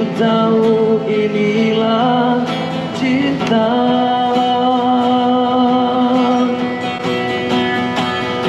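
A busker singing to his own strummed acoustic guitar, holding long sustained notes: one for about the first two seconds, then another of about four seconds.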